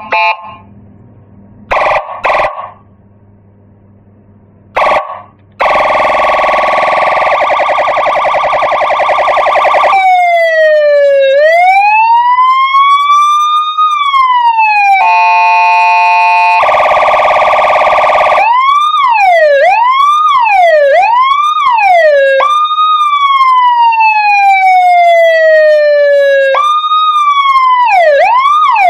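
Electronic 12-tone siren module sounding through a 25-watt, 8-ohm horn speaker, stepping through its tones. A few short beeps come first. Then a fast pulsing buzz, slow falling and rising wails, a steady horn-like tone, and quick yelping sweeps.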